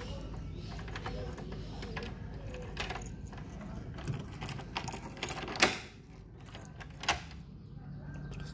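Keys on a keyring jangling and clicking against a door lock as a key is turned and worked in the lock cylinder. There is a run of small metallic clicks, with two sharper clicks later on. The key is one that jams in the cylinder unless it is turned back to the straight position.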